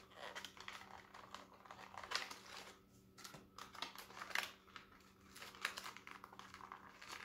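Quiet, irregular plastic rustling and small clicks as hands work accessories out of an action figure's cape, tugging at the little plastic tags that hold them.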